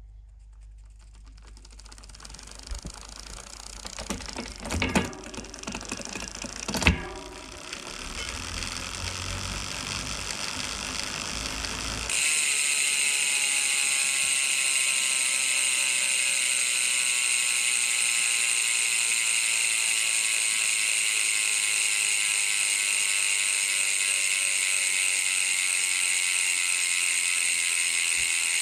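Bicycle rear hub freewheeling: the pawls click so fast that they merge into a steady, high, ratcheting buzz, and its pitch sinks slowly as the wheel coasts down. Before that, for about the first twelve seconds, there is a quieter, rising rumble of clicking with two sharp knocks about five and seven seconds in, and then the sound changes abruptly to the loud buzz.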